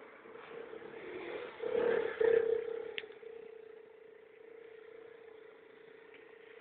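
Kymco scooter engine running with a steady drone, opened up harder for a louder rush about two seconds in before settling back. A single sharp click comes about three seconds in.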